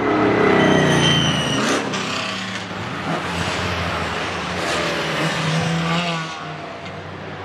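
Several historic racing and sports car engines passing one after another under acceleration. Loudest in the first second or so, where one engine's note sweeps down in pitch; another revs up rising around two-thirds of the way in, and the sound eases off near the end.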